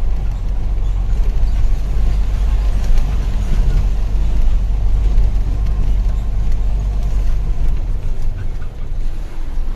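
Diesel engine of a Hino Lohan tronton dump truck running, a steady low rumble with a haze of mechanical and road noise over it.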